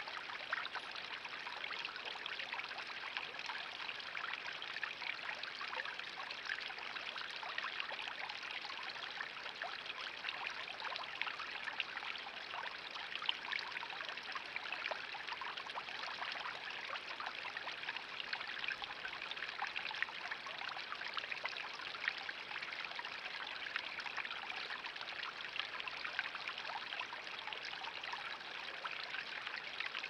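Garden pond water feature running: water spilling from a small upper basin into the pond and a bubbler fountain splashing, a steady trickling and splashing.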